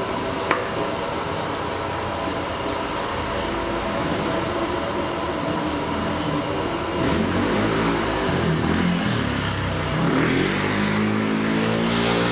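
Steady background noise of a busy street-food stall: a constant hum with indistinct sounds that swell in the second half. A short clatter about half a second in as a plate is set down on the table.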